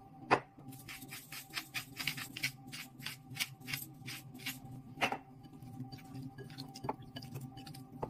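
Hand-twisted black pepper mill grinding: a fast, even run of crisp crunching clicks, about five a second, for some four seconds. A sharp knock comes just before the grinding starts, and a single duller knock about a second after it stops.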